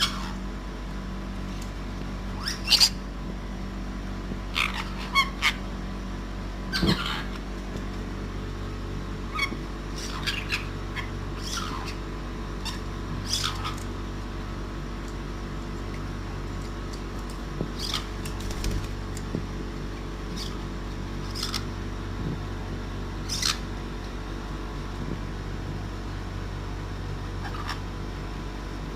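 Caique parrot giving short, shrill squeaks and chirps at irregular intervals, a few seconds apart, over a steady low hum.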